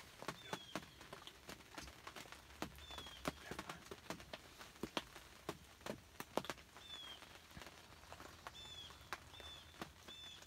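Faint, irregular sharp ticks and taps, with short, slightly falling whistled notes of a small songbird now and then; the notes come in quick runs of two or three near the end.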